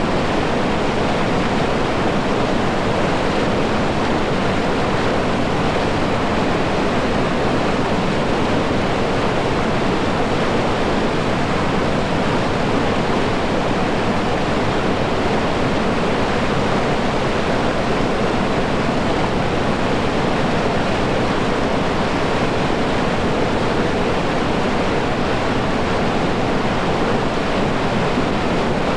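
Whitewater river rapids rushing in a steady, unbroken wash of noise.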